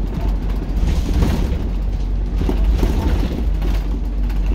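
Transbus Dart SLF single-deck bus heard from inside the saloon while running: a steady low engine and road rumble with short rattles and knocks from the body and fittings.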